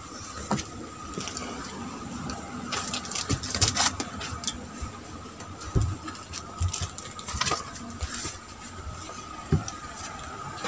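Scattered rustling, clicks and a few light knocks as a person gets up and walks, with a steady faint high whine underneath.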